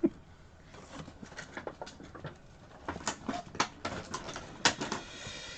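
Plastic packaging crinkling and clicking as it is handled: irregular small crackles, busier about three seconds in.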